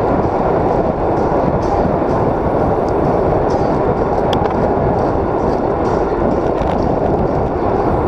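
Steady rushing wind and road noise on a handlebar-mounted action camera on a moving road bicycle, with a few faint clicks.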